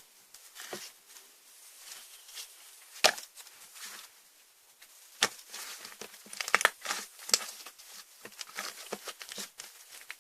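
Slime being squeezed and poked by hand, making sharp clicking pops of trapped air. One loud pop about three seconds in, and a quick run of pops around the middle.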